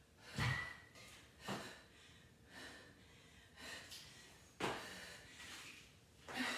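A woman breathing hard with sharp exhales and gasps from the exertion of barbell burpees. A thud comes about half a second in as the loaded barbell is set down on the rubber gym floor, and another knock about four and a half seconds in.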